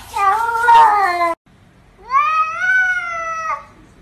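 A domestic cat meowing: a wavering cry that cuts off abruptly a little over a second in, then one long rising meow lasting about a second and a half.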